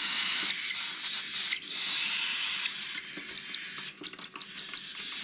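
Baby cockatiel chick making a raspy, hissing begging call while being hand-fed, which breaks up near the end into quick short chirps, several a second.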